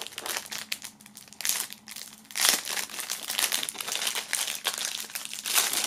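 Thin plastic foil crinkling as it is worked off a small keychain by hand, in irregular crackles, loudest about halfway through and again near the end.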